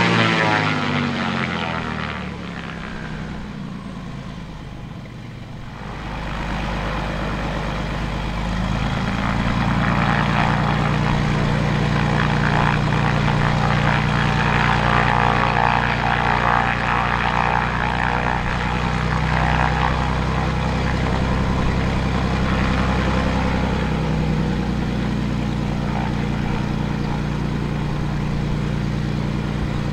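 Cessna T206H Turbo Stationair amphibian's turbocharged six-cylinder engine and propeller running on the ground: a steady hum made of several even tones. A louder sound fades away over the first two seconds, and the engine grows louder about ten seconds in as power is added to begin taxiing.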